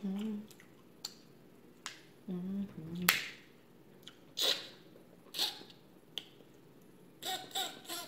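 Snow crab leg shells being cracked and snapped apart by gloved hands: a series of sharp separate cracks, the loudest about three seconds in, then crunching and a quick run of cracking and sucking sounds near the end as meat is pulled from the shell by mouth. Two short low hums from the eater come near the start and about two and a half seconds in.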